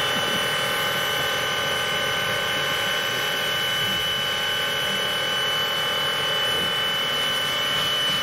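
Two-foot gauge steam locomotive venting steam from the top of its boiler: a steady, loud hiss with a high ringing tone running through it.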